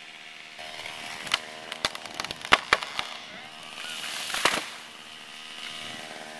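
Wood cracking and splintering: a handful of sharp snaps over about two seconds, then a louder rush of noise about four seconds in.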